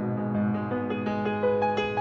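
Background music with keyboard notes moving over a held low note.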